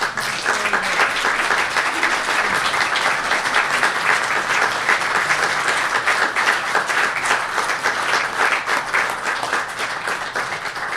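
Audience applauding: a dense, steady round of clapping that eases off slightly near the end.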